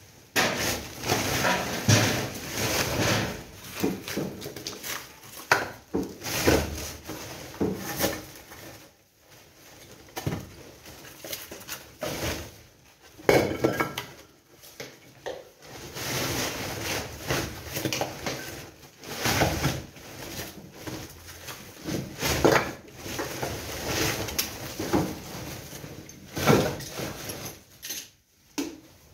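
Demolition rubble being loaded into woven plastic sacks and the sacks being handled: irregular rustling, scraping and clattering with sharp knocks, in a room that echoes. There are brief quieter gaps about nine seconds in and near the end.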